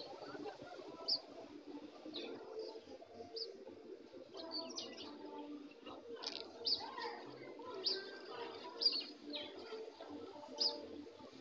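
A flock of young brown hens in wire cages vocalizing: a steady low murmur of clucking, with repeated short high chirps every second or so.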